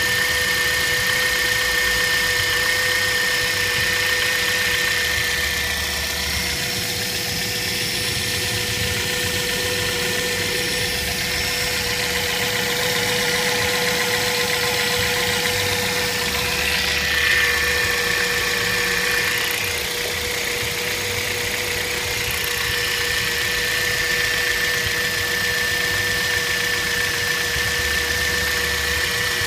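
Kia Rio engine running steadily, as at idle, with a constant whine held on two steady pitches over the engine noise: the extraneous noise the owner is recording.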